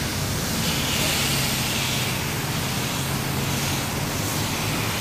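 Water jet from a fire hose hissing as it sprays onto the asphalt, strongest between about one and three seconds in, over a steady low engine hum.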